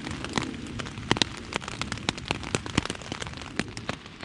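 Steady rain falling on a tent's fabric, heard from inside: many irregular sharp drop hits over a constant patter.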